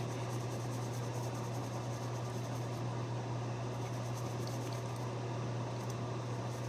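Steady low hum with an even hiss over it.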